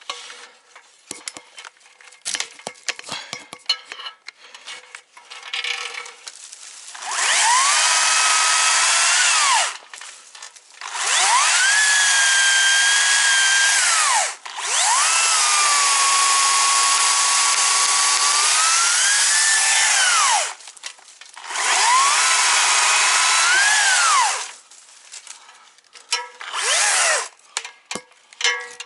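Chainsaw running in four long bursts with a short fifth near the end; each time the pitch rises as it speeds up, holds steady, then drops off when the throttle is released. Before the first burst there are scattered light cracks and clicks.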